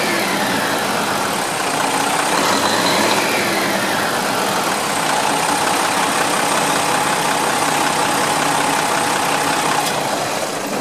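13-litre-class turbocharged inline-six diesel of a Japanese highway coach idling steadily, heard at its open rear engine bay. A faint high whine rises and falls in pitch a couple of times in the first few seconds.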